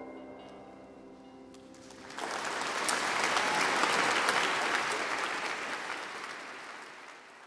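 The last notes of the music die away, and about two seconds in an audience bursts into applause, which swells and then fades out.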